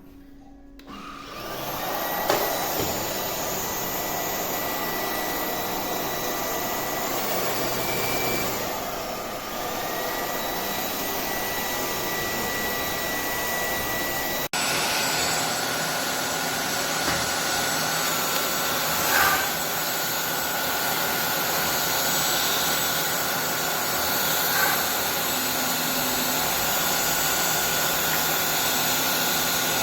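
Lubluelu cordless stick vacuum with a brushless motor running: it starts up about a second in and runs steadily with a high whine over a rushing airflow. About halfway through the sound changes abruptly, the whine settling lower and the running slightly louder.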